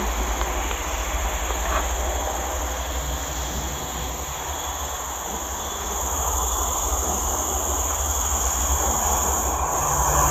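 Steady low rumble of a distant engine, growing louder toward the end, over a constant chirring of insects.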